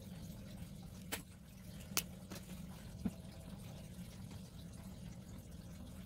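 Four short, sharp clicks from KingArt Pro fineliner pens and their caps being handled and set down while swatching, over a faint low steady hum.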